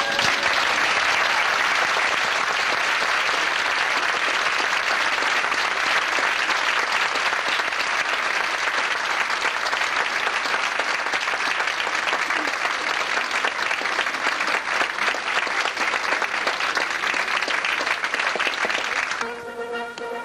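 Theatre audience applauding steadily after a ballet number. The applause fades out about a second before the end as the music starts again.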